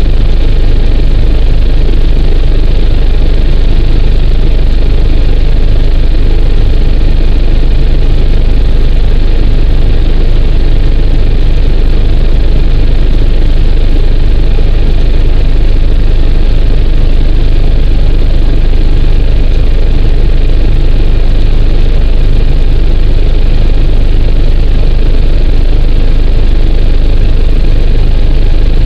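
Loud, steady cabin noise of an AgustaWestland AW109 twin-engine helicopter in cruise flight: a deep drone with a faint steady high whine on top, unchanging throughout.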